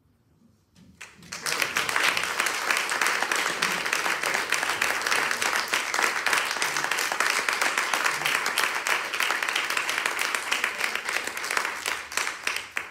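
Audience applauding in a hall: sustained clapping by many hands that starts about a second in, holds steady for about ten seconds, and dies away at the end.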